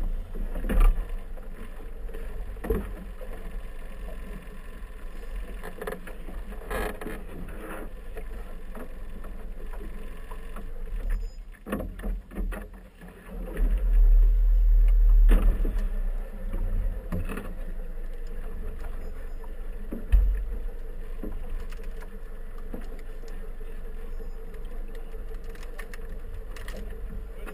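Motorboat engine running steadily at low speed, a low hum. About halfway through, a louder low rumble lasts a couple of seconds, and a sharp thump comes a few seconds later.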